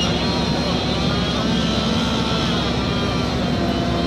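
Fire truck's diesel engine running steadily, a constant drone with a low hum in it.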